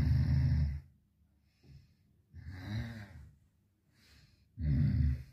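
A sleeping man's heavy breathing: three loud breaths about two seconds apart, the middle one quieter.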